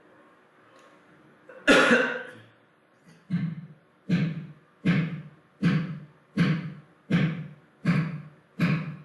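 Music begins: a loud opening chord on a plucked-string instrument, then a steady beat of struck, guitar-like chords about every 0.8 seconds, each dying away before the next.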